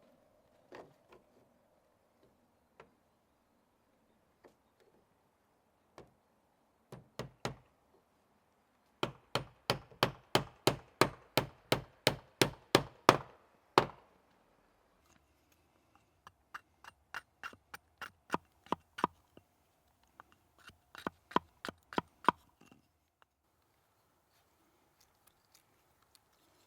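Hand tool striking wood: a few scattered blows, then three quick runs of steady strikes at about three a second, the first run the loudest.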